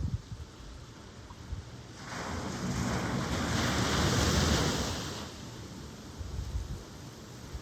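An ocean wave breaking and washing in, swelling about two seconds in and fading out a few seconds later, over steady surf. Short low buffets of wind on the microphone at the start and near the end.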